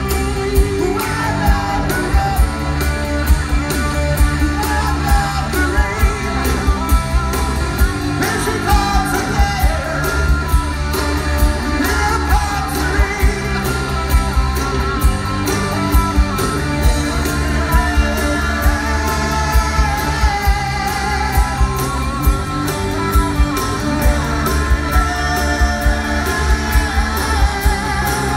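A live rock band playing: a male singer over electric guitars and a steady drum beat.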